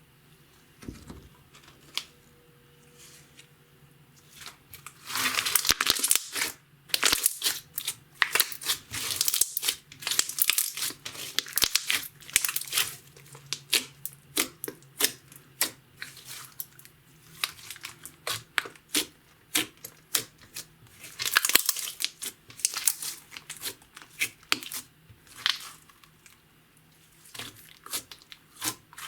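Clear slime mixed with makeup and glitter being stretched, folded and pressed by hand, giving sticky crackling and popping in bursts. It is sparse at first and busy from about five seconds in.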